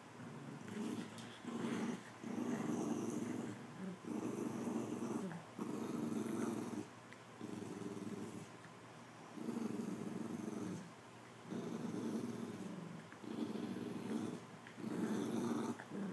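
Dogs growling in play while tugging a toy: a string of low growls, each about a second long, with short pauses between.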